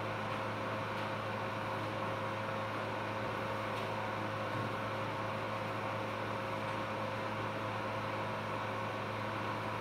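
Steady machine hum from operating-room equipment: a few held tones over an even hiss, unchanging throughout.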